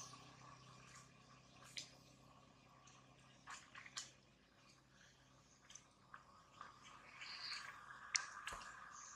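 Near silence: a low steady hum with a few faint, scattered clicks, and some faint high chirps near the end.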